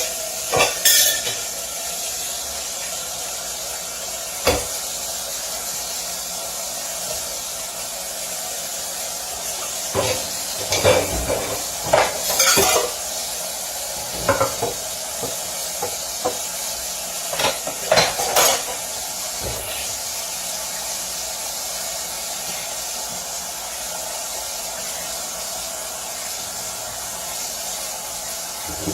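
Pots, pans and metal utensils clinking and knocking at irregular intervals, some in quick clusters, over a steady sizzling hiss like food frying in a pan.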